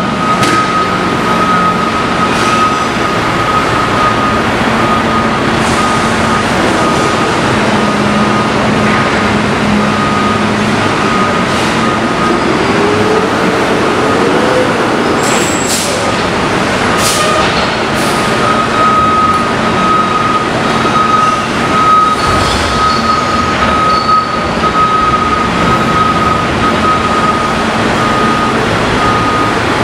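Curbtender side-loader garbage truck running with its dump body raised, moving forward and then backing up to shake loose a stuck load, its reversing alarm beeping steadily. The engine revs up briefly near the middle, with a few metal clanks soon after.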